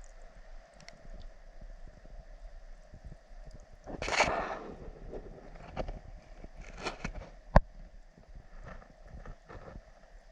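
Mountain creek water running steadily, with a brief loud rush of noise about four seconds in and scattered handling knocks, one sharp click about two-thirds of the way through.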